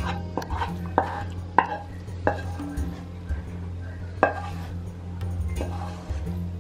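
A spatula scraping thick besan barfi paste out of a non-stick pan into a steel plate, with a handful of sharp knocks and clacks of the spatula against the pan.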